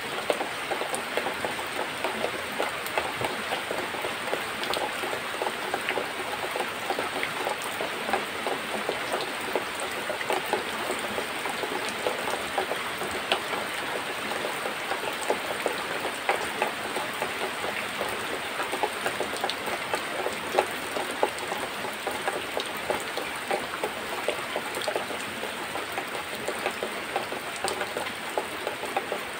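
A cow being milked by hand, the milk squirting in thin jets into a plastic bucket of frothy milk, heard as a continuous hissing patter.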